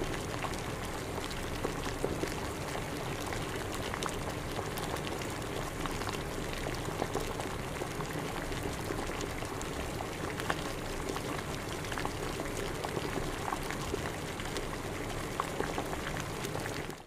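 Water at a rolling boil: steady bubbling with many small pops and crackles, dying away at the very end.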